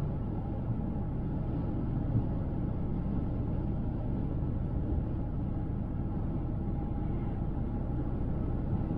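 Car driving at highway speed: a steady low rumble of road, tyre and engine noise.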